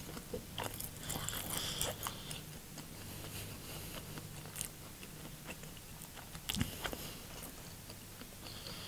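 A person chewing a mouthful of food: scattered small mouth clicks, with a sharper cluster of clicks about two-thirds of the way through, over a faint low hum.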